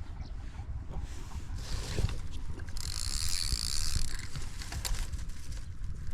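Fishing reel working, with mechanical clicking and a short hissy whir about three seconds in, over a low rumble of handling.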